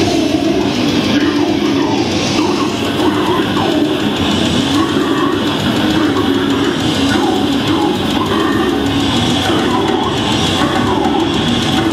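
Death metal band playing live and loud, with distorted electric guitars, bass and drum kit and growled vocals over them, heard from the crowd.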